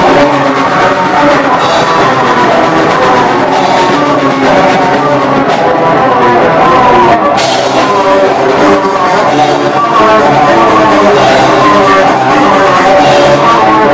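Black metal band playing live: distorted electric guitar, bass and a drum kit, loud and continuous.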